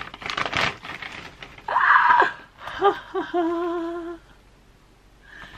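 Plastic mailer bag rustling as it is pulled open, then a woman's loud, high squeal of excitement about two seconds in, followed by a held, wavering cry of delight.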